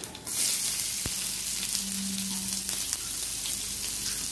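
Chopped onion dropped into hot oil in a frying pan, setting off a sudden, loud, steady sizzle that starts just after the beginning and keeps going. A single sharp click sounds about a second in.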